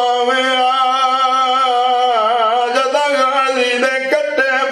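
A man chanting a mournful religious lament into a microphone, holding one long sung note that wavers in pitch partway through, then breaking into shorter phrases near the end.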